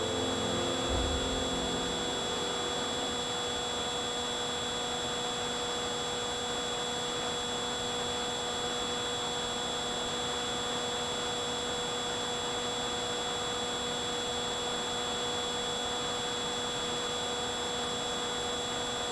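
RC model plane's electric motor and propeller running at a steady speed, heard through the onboard camera with a rushing airflow: a steady hum with several fixed high whining tones that do not change. Background music fades out in the first second or two.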